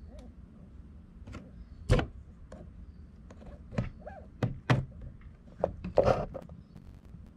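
Sharp clicks and knocks as the plastic ends of TLR 4.0 shocks are handled and pressed onto the ball studs of an RC buggy's metal shock tower. The loudest is about two seconds in, with a quick cluster of knocks near the end.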